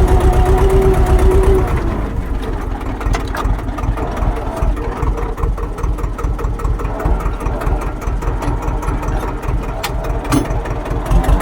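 Tractor diesel engine running, with a steady whine over it for the first second and a half; after that the whine stops and the engine goes quieter.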